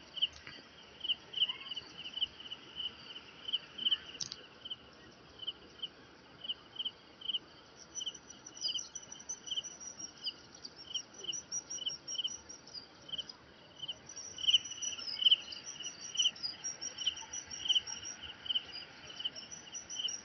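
Insects chirping in a steady pulse, about three short, high chirps a second, with fainter, higher chirps joining from about halfway through.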